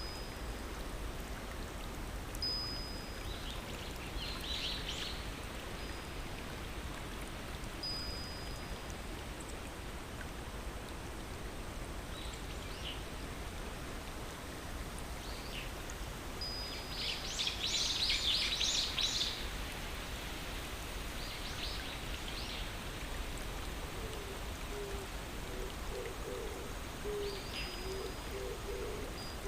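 Steady rush of water, with a few short high whistled bird notes and clusters of high tinkling notes, the loudest about two-thirds of the way through. In the last few seconds a series of low, evenly repeated hoots begins.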